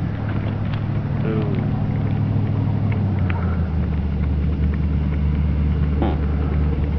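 Steady low hum of an idling motor-vehicle engine, its pitch dropping slightly about three seconds in.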